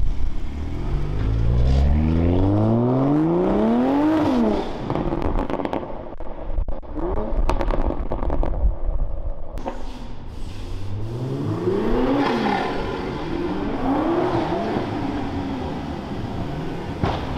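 Straight-piped Toyota A90 Supra with a decatted titanium exhaust accelerating hard away, its engine note rising for about four seconds before cutting off at the lift. Crackles and pops follow on the overrun, then the engine revs up twice more as the car comes back.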